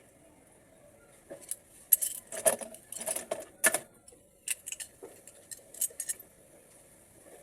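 Small metal parts of an automatic transmission valve body clinking and clattering as they are handled, a run of sharp clicks between about one and six seconds in.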